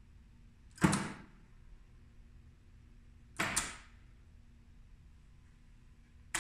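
Sharp mechanical clacks from a magnetic contactor (power relay) on a control-circuit training board as it pulls in and drops out: one about a second in, another about three and a half seconds in, and a third at the very end.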